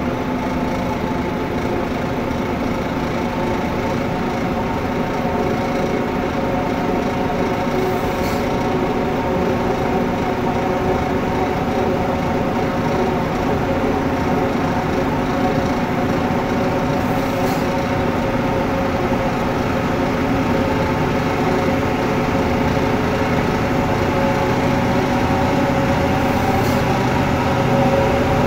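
Slow-moving heavy-haul rig of multi-axle modular trailers and diesel tractor trucks: a steady mechanical drone with a hum of several steady tones, gradually getting a little louder toward the end.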